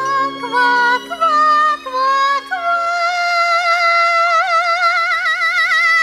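A frog character singing without words: a few short notes, then one long note held with a wide vibrato from about halfway through, over light musical accompaniment.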